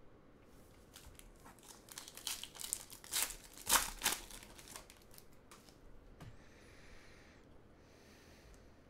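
Foil wrapper of a trading-card pack being torn open and crumpled by hand: a run of sharp crinkles and rips, loudest about three to four seconds in, then fading to faint rustling.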